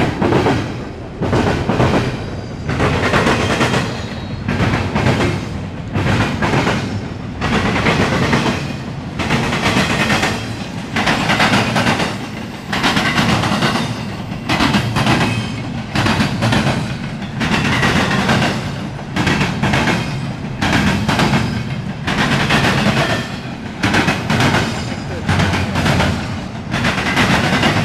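Norfolk Southern double-stack intermodal freight train rolling past, its steel wheels clattering on the rails in a steady rhythm that swells about every second and a half.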